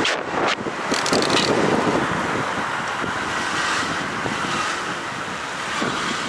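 Wind rushing over the microphone of a motorcycle riding at speed, mixed with engine and road noise.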